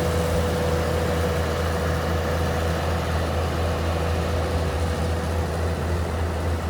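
A heavy engine running steadily at an even pace, with a low hum and a thin steady whine over it.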